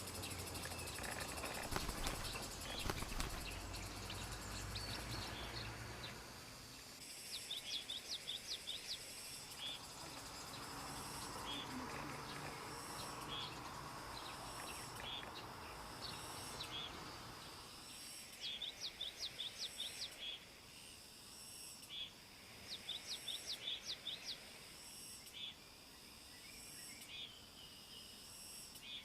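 A bird calling in quick runs of short, sharp high notes, three runs of about eight notes each, over a steady high hum of insects. A low rumble fills the first few seconds.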